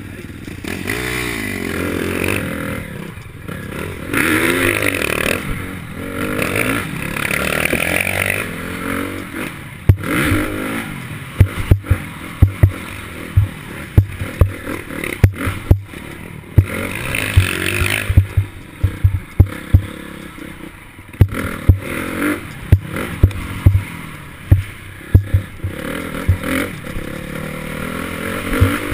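Dirt bike engine revving up and falling back through the gears. From about ten seconds in, many sharp knocks and rattles from the bike and its mounted camera jolting over the rough trail come in over it.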